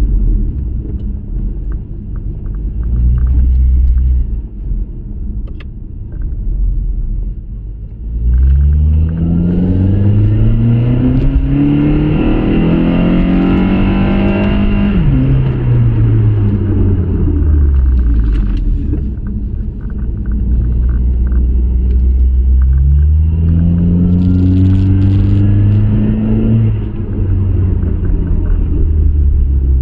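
Honda Accord VIII's 2.4 K24 four-cylinder engine, breathing through a homemade cold air intake with a K&N filter and the intake resonator removed, heard from inside the cabin. It rumbles low at first, then about eight seconds in the engine note climbs steadily for several seconds under acceleration and falls away. Later a second, shorter pull rises and drops.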